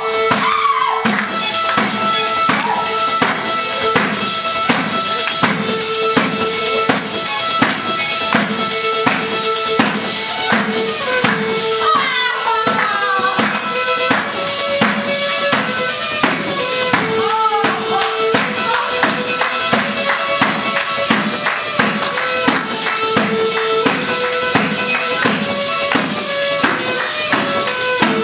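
Tarantella music driven by a tambourine-style frame drum beating a fast, even rhythm, with a melody instrument playing held notes and gliding phrases above it.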